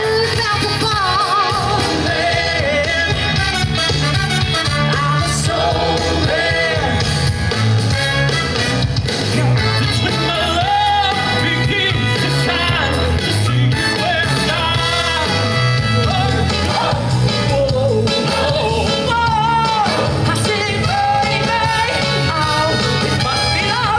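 Soul music from a stage show: singers' voices over an accompaniment with a steady bass line.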